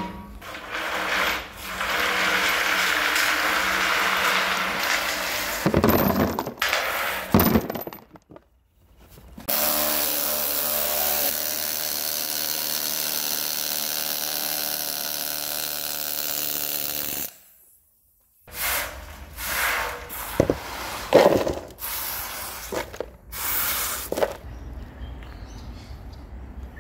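A hand-held pneumatic air tool running in long, steady bursts against a steel compactor blade, with hard cut-offs between bursts. Near the end come scattered knocks and handling noise.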